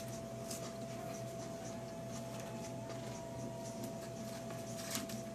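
A person chewing and handling food, with faint rustling and soft clicks, over a steady electrical hum.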